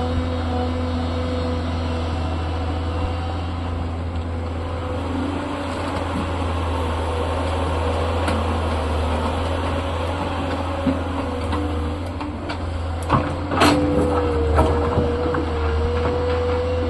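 Tata excavator's diesel engine running steadily with a whining hydraulic tone. A cluster of sharp knocks and clatter comes about three-quarters of the way through, after which the whine grows louder.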